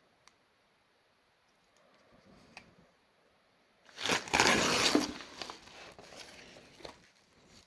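Packaging being opened by hand: faint handling and clicks, then about four seconds in a loud burst of crinkling and tearing lasting about a second, trailing off into lighter rustling.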